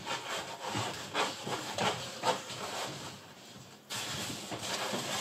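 Fibreglass wall-covering rustling and rubbing as it is unrolled and smoothed flat by hand on a pasting table, in a run of scraping strokes that gets suddenly louder about four seconds in.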